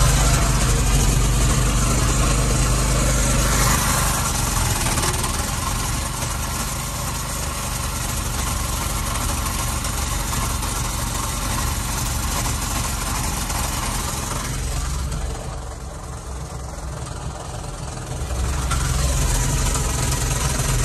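Harbor Freight Predator 212cc single-cylinder four-stroke engine running steadily, driving a generator, heard inside the car's cabin where it is mounted. About two-thirds through it turns quieter and duller for a few seconds, then comes back.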